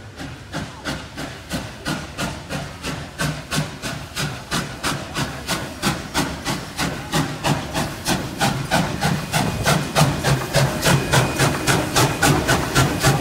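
Victorian Railways K-class 2-8-0 steam locomotive K183 working a train through a station, its exhaust beating in an even chuff of about four beats a second. The beats grow steadily louder as the engine draws near and passes.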